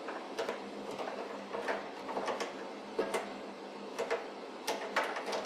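Typing on an Epson QX-10 keyboard: a quick, uneven run of key clicks as a command is entered at the prompt.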